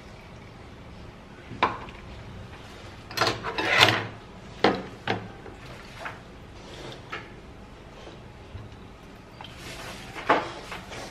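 Scattered knocks and clatter of kitchen utensils around a stainless-steel mesh sieve: a plastic tub knocked against the sieve as grated vegetable pulp is emptied into it, the loudest knocks bunched about three to four seconds in. Near the end a metal spoon clinks in the sieve as it presses the pulp through to strain out the juice.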